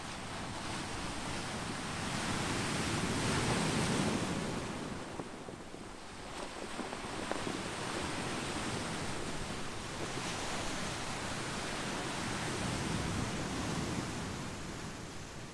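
Ocean surf washing over a beach of rounded boulders and pebbles, a wave swelling about two seconds in and ebbing around six seconds, then a longer surge that fades near the end.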